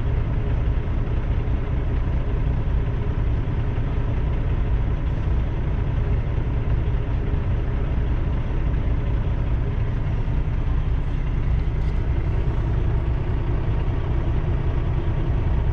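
Steady low rumble of a semi truck's diesel engine idling, heard from inside the cab, while a long freight train rolls slowly past the crossing.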